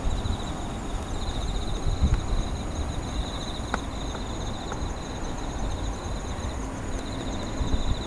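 Insects singing at night, several cricket-like high pulsed trills going on steadily, one pausing briefly past the middle, over a louder low rumble.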